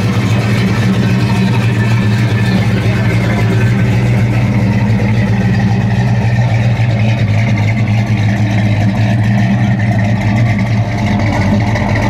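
1969 Dodge Charger R/T's 440 big-block V8 idling steadily.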